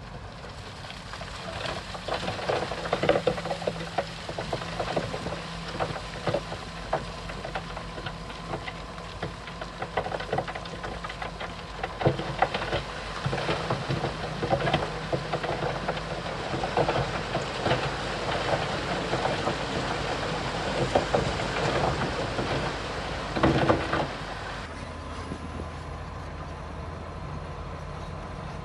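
Heavy diesel earthmoving machinery running, with dense irregular clanking and rattling, as of steel tracks and stone, over a steady engine hum. The clatter stops suddenly about 24 seconds in, leaving a steadier engine hum.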